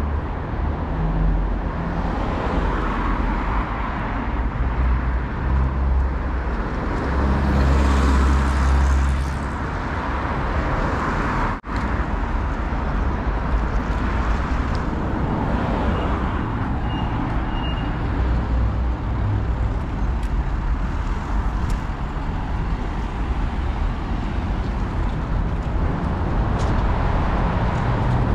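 City street traffic: cars passing on the road with a steady low rumble and tyre noise, one passing close about eight seconds in. The sound cuts out for an instant near the middle.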